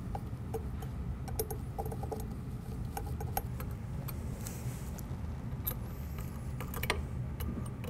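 Scattered small metallic clicks and taps as set screws on the sides of a ball rail carriage are turned by hand, over a low steady hum.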